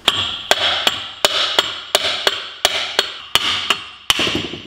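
A hammer striking the end of a Peugeot Speedfight 2 crankshaft again and again, about three blows a second, each with a short ring, driving the old shaft out of the second crankcase half.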